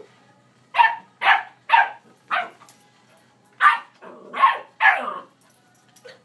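A dog barking in play: seven sharp barks, four in quick succession, then a pause of about a second and three more.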